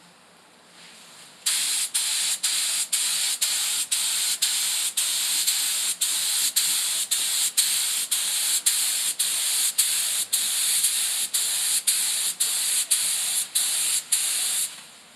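Paint spray gun hissing as it sprays water-based pigmented lacquer. It starts about a second and a half in, dips briefly about twice a second, and stops just before the end.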